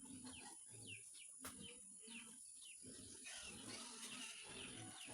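Faint bird chirps, short falling notes repeating a couple of times a second, over low animal grunting.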